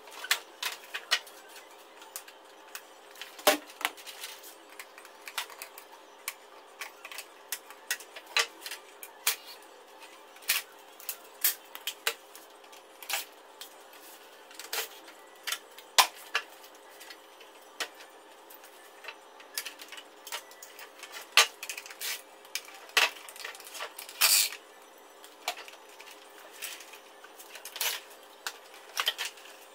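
Irregular clicks, clinks and clatter of hand tools against the metal and plastic parts of a wall-mounted split air-conditioner indoor unit being taken apart, with one longer rasp late on.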